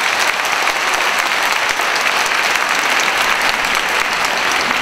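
Theatre audience applauding steadily, many hands clapping, as the guitar music ends.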